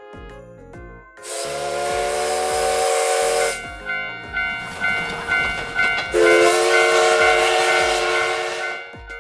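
Steam locomotive whistle sound effect, blown twice, each long blast carried on a hiss of steam, with a quieter pulsing stretch between the blasts.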